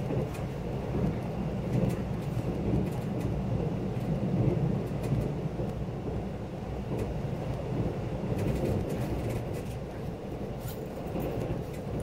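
Steady rumble of a KTX train running at speed, heard from inside the passenger car, with a few faint ticks over it.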